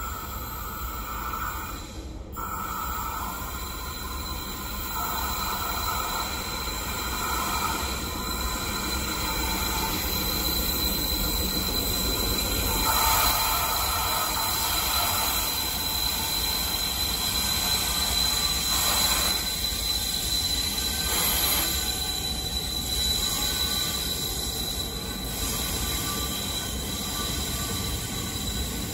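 KTMB Class 26 diesel locomotive hauling a container freight train approaches and passes, engine running and wheels rolling on the rails, growing louder as it nears. A steady high-pitched wheel squeal runs through it.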